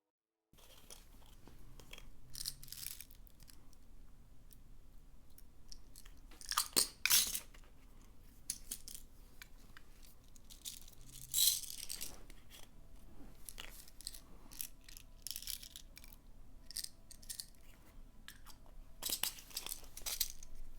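Hands working slime: irregular sticky crackles and squelches, with a few louder pops, two close together about a third of the way in and one just past halfway.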